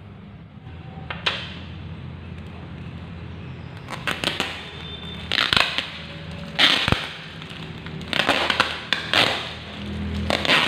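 Brown packing tape being peeled and torn off a plastic-wrapped parcel: a series of sharp ripping pulls, with crinkling of the plastic wrap between them. The first pull comes about a second in, and the pulls come more often from about four seconds on.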